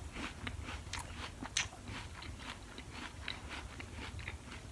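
Quiet chewing of a mouthful of Cosmic Crisp apple: an irregular run of small crisp crunches, one a little louder about a second and a half in.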